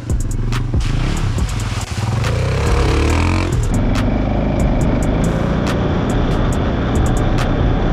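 Off-road engines. A dirt bike revs as it comes down the trail to a mud hole, its pitch rising and falling. About four seconds in, this gives way to an off-road vehicle's engine running steadily at speed on a dirt road.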